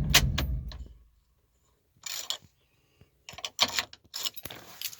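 A gasoline V8 truck engine, misfiring from failing ignition coils, runs briefly and shuts off, dying away about a second in. After a short silence come several scattered sharp clicks and knocks.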